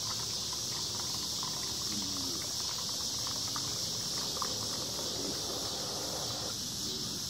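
Juice running from the cooler's built-in drink dispenser tap into a plastic cup, a soft trickling splash that cuts off sharply about six and a half seconds in, over a steady high hiss.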